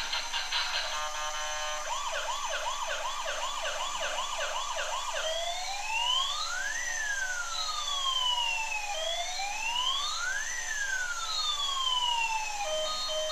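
Electronic siren sounding a fast yelp of rising-and-falling chirps, about three a second. It then switches to a slow wail that rises and falls twice.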